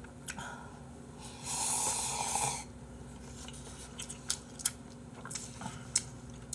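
A person eating cup noodles: one long slurp lasting about a second, followed by a few light clicks of the utensil against the cup.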